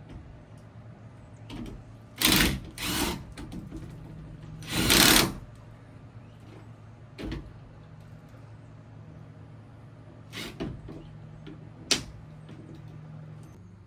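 Power drill driving screws into a ceiling fan mounting bracket in short bursts: three runs a few seconds in, the last and longest about half a second, then a few brief blips later.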